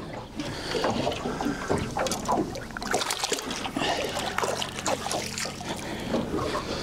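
Lake water splashing and trickling at the side of a small boat as a perch is released by hand back into the water, with a low steady hum underneath.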